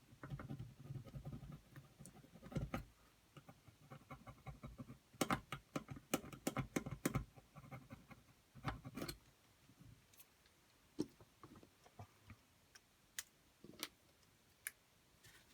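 A tool scraping and ticking against a circuit board, scratching the varnish layer off a copper trace to bare the copper: faint, irregular scrapes and clicks, busiest from about five to nine seconds in, then thinning to scattered single ticks.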